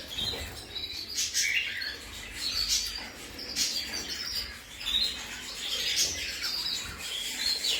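Caged canaries chirping and calling: short, high chirps about once a second, with several birds overlapping.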